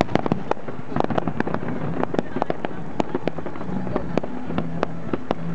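Fireworks display: aerial firework shells bursting in a rapid, irregular string of sharp bangs and cracks, several a second.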